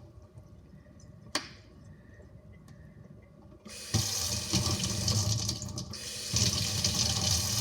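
A kitchen tap's water stream is shut off; a single click sounds about a second and a half in. The tap then runs again from about four seconds in, water pouring over a small plastic fidget toy held under it.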